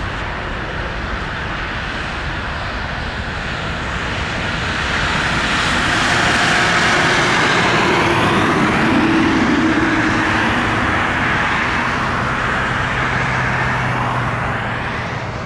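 Airbus A320's twin turbofan engines at takeoff thrust as the jet climbs away: a steady jet engine noise that swells about five seconds in, then slowly fades near the end.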